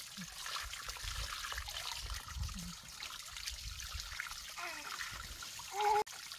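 Water trickling steadily from a pipe into a plastic basin while hands splash in it. A brief high voice near the end, probably the baby's, is the loudest moment, and the sound then cuts off suddenly.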